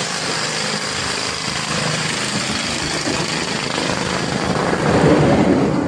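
Steady, loud din of house renovation work, a mix of power-tool and machine noise, swelling about five seconds in.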